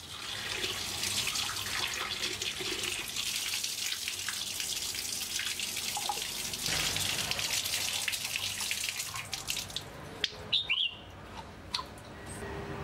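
Water running from a tap and splashing as plastic bird-cage feeder cups are rinsed; the flow stops about ten seconds in. A short high chirp and a few light plastic clicks follow.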